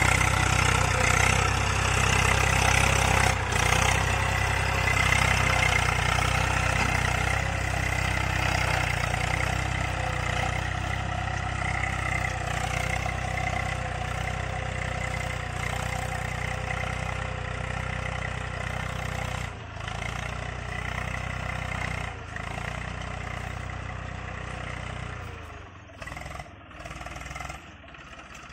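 Eicher 380 tractor's diesel engine running steadily under load as it pulls a tine cultivator through dry soil. It grows fainter as the tractor moves away.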